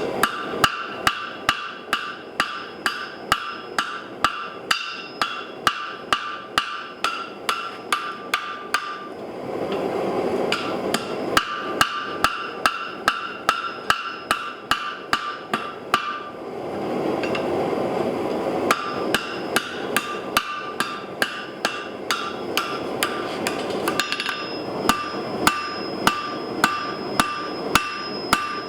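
Hand hammer striking hot steel on a 160 lb Trenton anvil in a steady rhythm of about two to three blows a second, each blow leaving the anvil ringing. The striking stops twice for a couple of seconds, and in those gaps a low rushing noise is heard.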